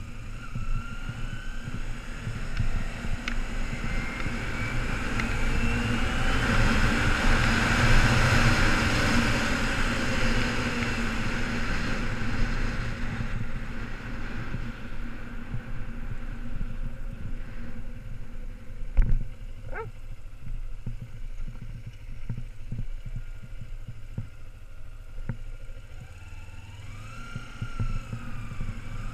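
Kawasaki Ninja 250R's parallel-twin engine running under a rider at low street speed, its pitch rising as it accelerates near the start and again near the end, with wind rushing over the helmet-mounted camera's microphone, loudest about eight seconds in. A single sharp knock comes about two-thirds of the way through.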